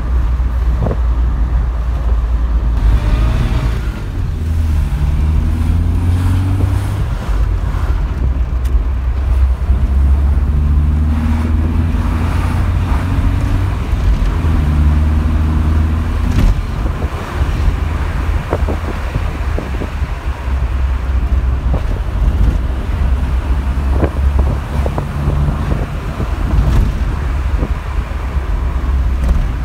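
Opel Manta GT/E's four-cylinder engine running on the move, with a heavy low rumble. Its pitch rises several times under acceleration and drops back between rises, as it pulls through the gears.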